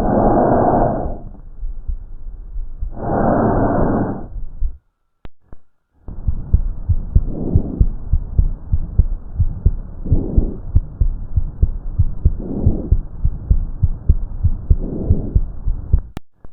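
Chest sounds recorded through a stethoscope. First come two loud breaths. Then, after a short break, a second recording plays a fast, regular heartbeat with a softer breath about every two and a half seconds.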